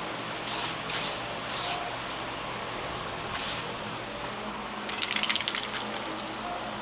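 Aerosol spray-paint can hissing in three short bursts. About five seconds in comes a brief rapid clicking rattle, the loudest sound.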